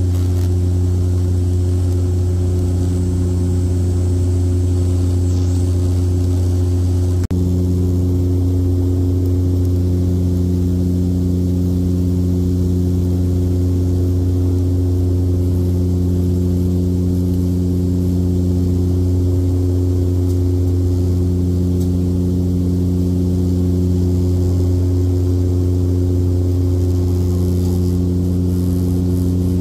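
Steady low drone of a De Havilland Dash 8 Q400's turboprop engines and six-blade propellers, heard inside the cabin beside the propeller. A slow beat swells and fades every few seconds.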